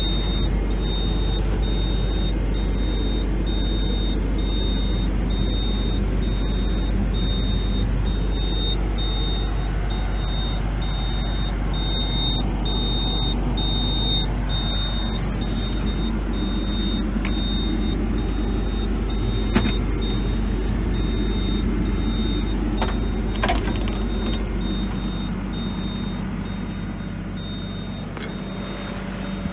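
Hyundai Robex 235 LCR-9 excavator's diesel engine running steadily at idle, about 860 rpm. A high, thin tone cuts in and out above the engine, and there are two sharp clicks in the second half.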